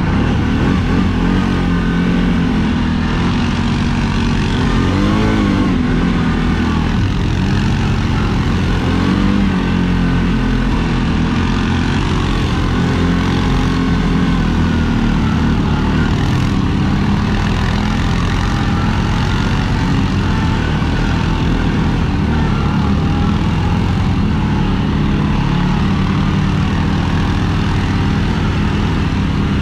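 CFMOTO CFORCE ATV engine running under way on a dirt trail, heard from the rider's seat, with the revs rising and falling briefly about five and nine seconds in.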